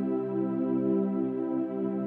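Ambient new-age background music: a steady drone of many held tones.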